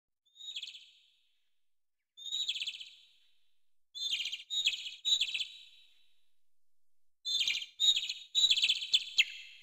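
Small bird chirping in about eight short bursts of rapid, trilled, high chirps, coming closer together in the second half.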